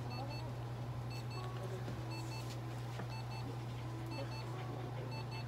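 Light therapy unit beeping a short double beep about once a second, over a steady low electrical hum.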